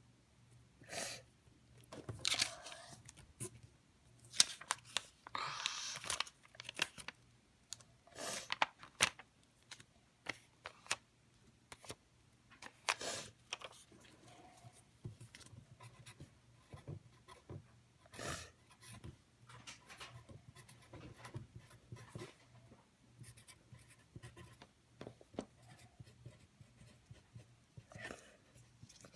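Slime being played with by hand: a run of short sticky clicks, crackles and pops as it is squeezed, poked and pulled, with a few longer tearing, stretching sounds in between.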